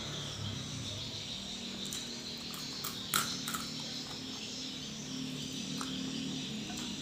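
Steady chorus of calling insects with a low drone beneath it, and two or three short clicks about three seconds in.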